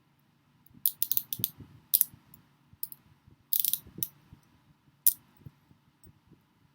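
Metal handcuffs ratcheting: sharp metallic clicks in short runs as the cuff's toothed arm is worked through the lock, with a quick burst of ratchet clicks about three and a half seconds in.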